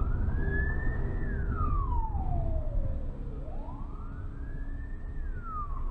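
Ambulance siren wailing: one tone rising and falling slowly, a full rise and fall about every three and a half seconds, over a steady low road rumble inside the car.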